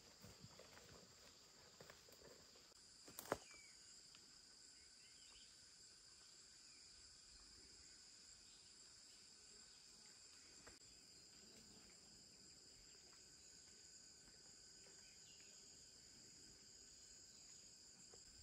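Faint, steady high-pitched chirring of insects, with a single sharp click about three seconds in.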